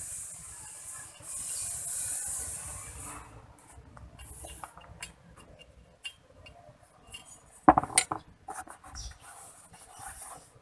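A steady hiss for about three seconds, then scattered clinks of metal hand tools and parts during differential pinion seal work, with a loud metallic clank about eight seconds in.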